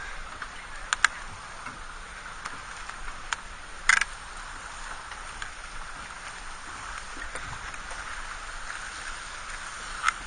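Turbulent tidal water fizzing and lapping around a small sailing dayboat's hull, with a few short sharp splashes or knocks about a second in, near four seconds and just before the end.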